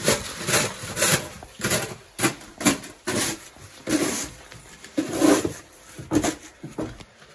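Snow shovels scraping and dragging over snow-covered steps and pavement in a quick, irregular series of rasping strokes.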